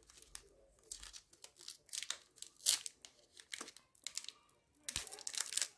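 Trading card pack wrapper being torn open and crinkled by hand, in irregular rustling bursts; the loudest comes a little under three seconds in, with more near the end.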